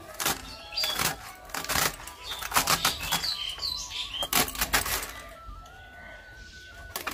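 Cabbage being shredded on a boti, the fixed curved blade slicing through the leaves in quick, irregular crisp cuts.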